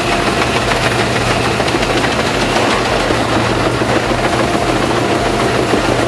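Large Albach wood chipper running hard while chipping wood: a steady, loud engine drone under a dense crackle of wood being shredded.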